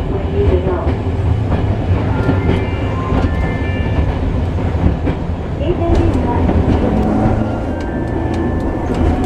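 Hiroden streetcar heard from its driver's cab while running: a steady low rumble of wheels on rails and the traction equipment, with scattered sharp clicks.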